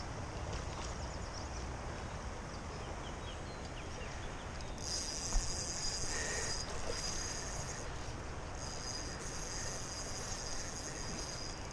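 Insects chirring in a steady high buzz that starts partway in and breaks off briefly a few times, over a low outdoor rumble. There is a single brief knock near the middle.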